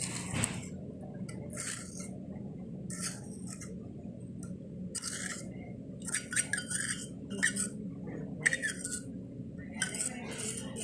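Spatula scraping wet soil paste around a porcelain bowl and into the small metal cup of a cone penetrometer, in short repeated scrapes about once a second, over a steady low hum.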